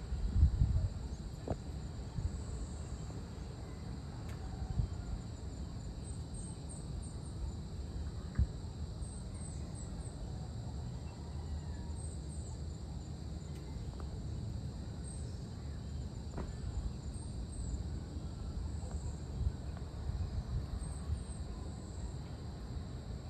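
Evening outdoor ambience: a steady high drone of insects such as crickets, with short high chirps scattered through the middle, over a constant low rumble.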